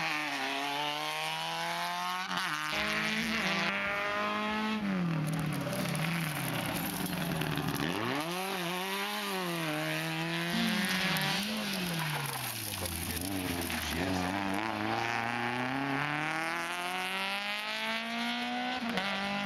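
Small hatchback race car's engine revving hard and falling back over and over as it is driven through a cone slalom, its pitch climbing under throttle and dropping on lifts and gear changes.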